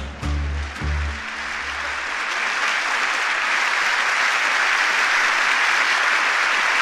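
The song's final low chords end about a second in, then an audience applauds, the applause swelling and growing louder.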